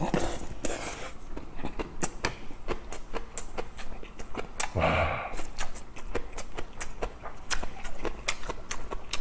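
Close-miked chewing of a mouthful of rice, cabbage kimchi and grilled fish: a steady stream of small wet mouth clicks and smacks, with one louder nasal sound about five seconds in.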